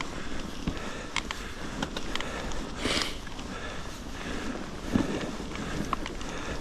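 Mountain bike ridden over a snow-covered trail: steady noise of the tyres through snow and wind on the microphone, with scattered clicks and rattles from the bike and a loud breath about three seconds in.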